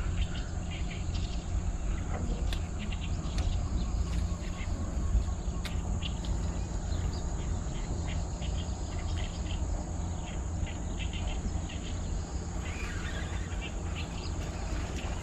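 Steady high-pitched insect drone over a low, even rumble, with scattered short ticks and chirps.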